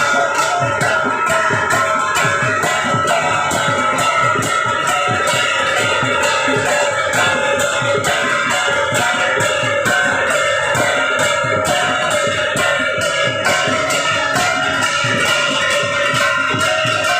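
Music with a plucked guitar melody over a steady beat.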